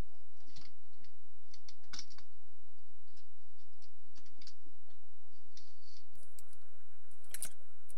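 Irregular small clicks and taps of hands working on a Bush clock radio and its switch, over a steady low hum. A faint hiss comes in about six seconds in, and a sharper cluster of clicks follows near the end.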